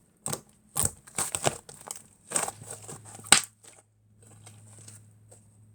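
Fluffy mixed slime being squeezed and pressed by hand: a run of sharp crackling pops and squishes, the loudest about three seconds in, then fainter, finer crackling.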